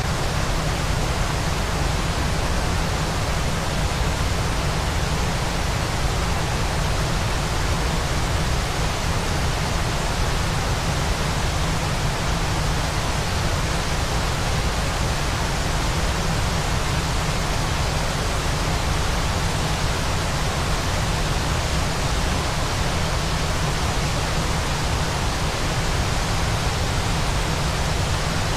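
Continuous waterfall white noise: an even, unchanging rush with a strong low rumble and no separate splashes or changes in level.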